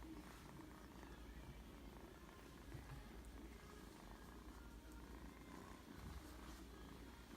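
Norwegian Forest Cat kitten purring, a faint, steady low rumble.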